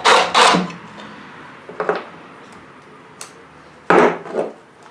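Several short knocks and clatters from tools and mower parts being handled at a workbench, with a louder double knock about four seconds in.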